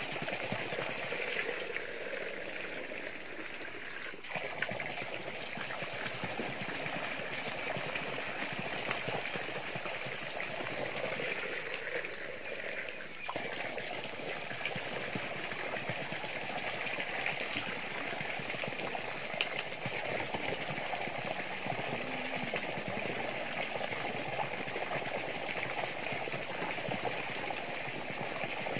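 Water pouring and trickling steadily as a knapsack sprayer tank is filled, with brief dips about four seconds in and again around thirteen seconds.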